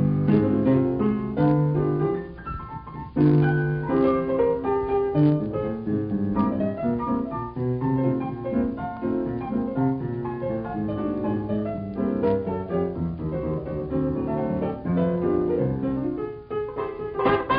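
Background piano music: a melody and chords played on a piano.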